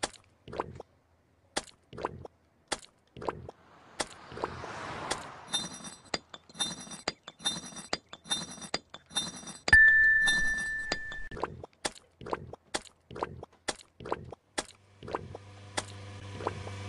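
Cartoon sound effects: a run of sharp clinks, about two a second. Bright sparkling chime notes sound in the middle, and a loud steady beep is held for under two seconds just before the end of the chimes.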